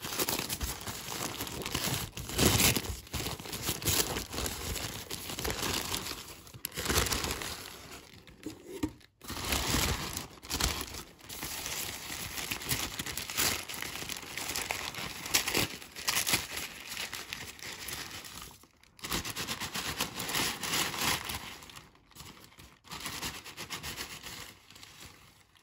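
Paper wrapping crinkling and rustling as it is pulled off a potted orchid by hand. It comes in irregular bursts with a few short pauses.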